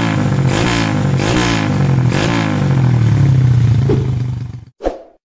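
Motorcycle engine revved through an open 61mm full titanium exhaust: several quick throttle blips, the revs falling back after each, then a longer held rev. It cuts off suddenly near the end, followed by one short burst.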